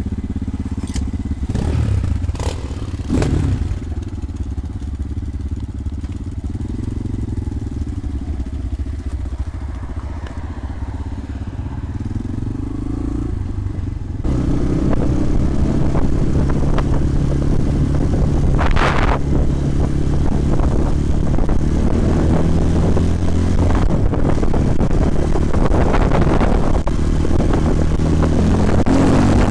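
250 cc enduro motorcycle engines running at low revs, with a few short knocks early on. About halfway through the engine sound abruptly gets louder and stays up, as the bikes run at higher revs.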